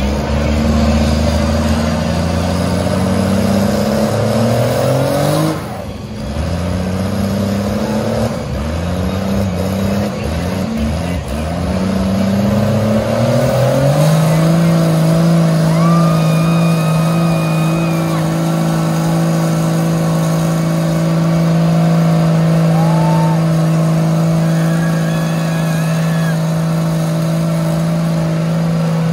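Big truck engine at full throttle: the revs climb and fall back several times, then about halfway through they hold at one steady high pitch for the rest of the time, as a truck pulls hard in a tug-of-war.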